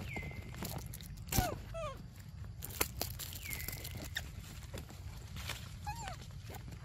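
Rustling and crunching of leaves and twigs in forest undergrowth as young macaques move about, with high-pitched animal calls over it. A whistle falls and then holds, heard twice about three seconds apart, and a few short descending chirps follow the first one.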